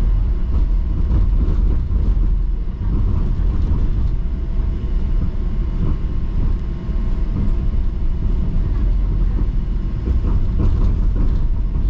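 Inside a moving TTC streetcar (Bombardier Flexity Outlook): a steady low rumble of the car running on its rails, with faint steady whine tones above it and a few light rattles near the end.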